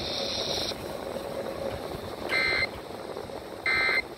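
EAS end-of-message data bursts from a NOAA Weather Radio receiver: two short, harsh, buzzy chirps about a second and a half apart, closing the tornado warning broadcast. A hiss cuts off shortly before them.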